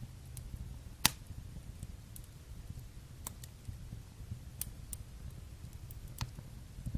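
Fire burning in a fireplace: a steady low rumble of flames with about half a dozen sharp crackles and pops, the loudest about a second in.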